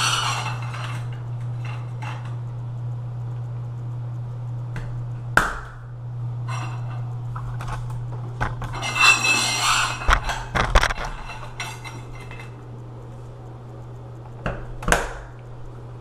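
Metal cover caps of a stainless steel grab bar being slid along the bar and pushed over its mounting flanges against the tile: scattered metallic scrapes and clinks, the busiest stretch a little past the middle, over a steady low hum.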